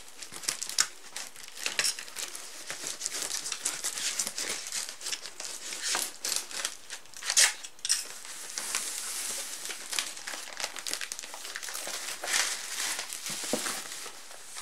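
Paper wrapping and packing tape being torn and peeled off a cardboard parcel: continuous crinkling with scattered sharp rips.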